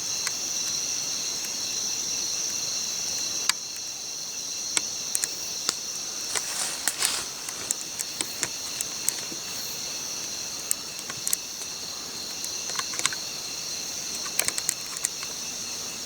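Steady high-pitched chorus of night insects, crickets among them, with irregular sharp clicks and pops scattered through it, clustered a few times.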